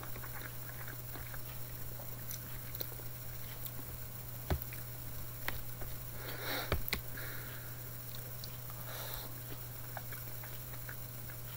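A person eating lamb curry and rice: quiet chewing with a few sharp clicks of cutlery on the container, about four and a half and seven seconds in, and soft breaths near the middle, over a steady low electrical hum.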